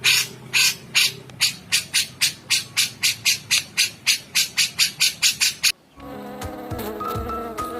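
An insect's rhythmic raspy chirping, about four pulses a second, that cuts off abruptly near the end, followed by steady music.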